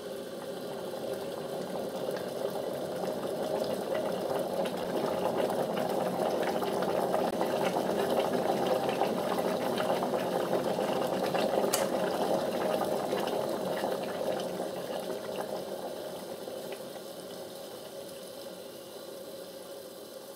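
Water at a rolling boil in a Morphy Richards 43771 Accents Pyramid electric kettle with a 3 kW concealed element: a steady rushing, bubbling roar that builds to its loudest around the middle. There is a single sharp click about twelve seconds in. After that the boil dies down and grows quieter.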